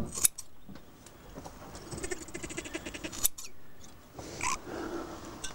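Lamb bleating in a quickly wavering call about two seconds in, with a shorter call near the end, while its ear is notched with a knife for ear-marking. Sharp short clicks sound just after the start and again about three seconds in.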